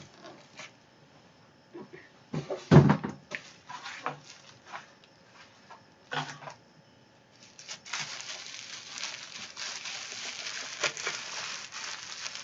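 A parcel being unwrapped by hand: scattered taps and knocks with one heavy thump about three seconds in, then, from about seven seconds, steady crinkling of bubble wrap and plastic packaging being pulled open.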